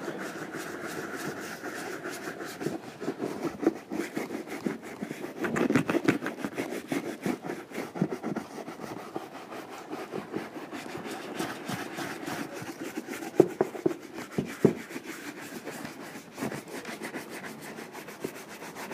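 Small bristle brush scrubbing leather lotion into a black Horween Chromexcel leather boot in quick back-and-forth strokes. A couple of sharper knocks come about two-thirds of the way through.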